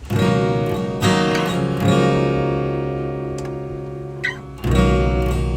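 Acoustic guitar strumming the opening chords of a song. There are strums at the start, about a second in and about two seconds in, then a chord left ringing and slowly fading until a new strum near the end.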